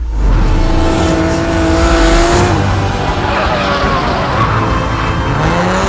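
Drift car's engine revving hard, its pitch climbing, falling back and climbing again, with tyres squealing as the car slides sideways through a drift.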